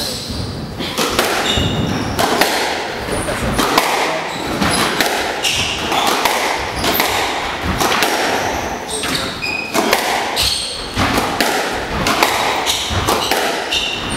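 Squash rally: the ball is struck by rackets again and again and thuds off the court walls, with short high squeaks from players' shoes on the wooden floor.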